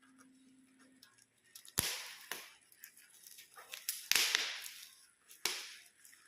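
Packaging being handled during a hair trimmer unboxing: four sharp snaps, each trailing into a short rustle. The loudest and longest comes about four seconds in.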